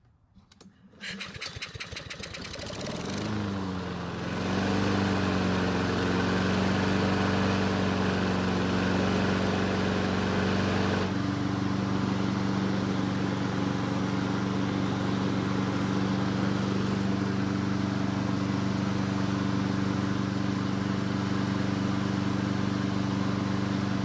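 Honda HRN 216 mower's single-cylinder four-stroke engine pull-started: a second or two of cranking, then it catches, revs up and runs steadily, its note shifting slightly about eleven seconds in. It starts only after the carburettor was primed by hand, pointing to a fuel-delivery problem such as water in the carb bowl or a blocked jet, as the owner guesses.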